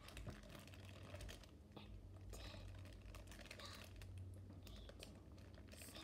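Faint, rapid clicks and crinkling close to the microphone, with a few soft whispers between them.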